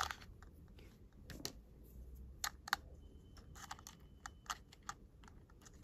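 Scattered light clicks and taps of small hard objects being handled: a plastic watercolour half-pan case and loose beads.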